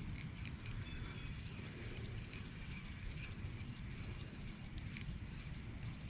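A steady, high-pitched insect trill, finely pulsed and unbroken, over a low rumble.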